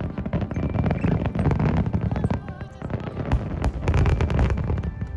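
Aerial fireworks shells bursting in rapid succession: a dense barrage of bangs and crackling over a deep rumble.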